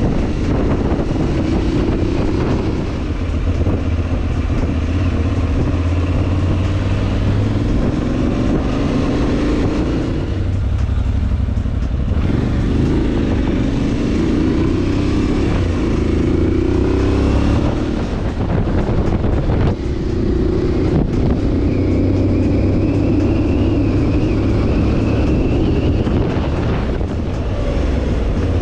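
Adventure motorcycle engine running under riding load, its pitch rising and falling with throttle and gear changes. It eases off about ten seconds in and pulls again, with steady wind and road noise underneath.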